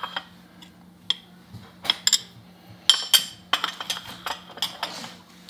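A metal spoon and small ceramic dessert plates clinking and tapping as ice cream is spooned onto cake and the plates are handled on a stone countertop: scattered short clinks, coming thicker past halfway.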